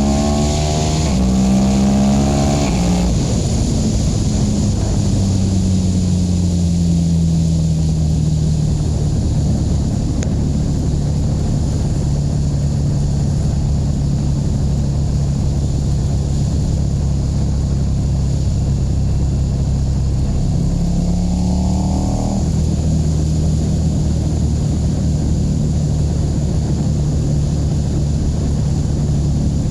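KTM 1290 Super Duke R's V-twin engine under way: revs rising and falling through the gears at the start, then dropping and holding steady at a cruise. A short rise in revs comes about two-thirds of the way through before it settles steady again.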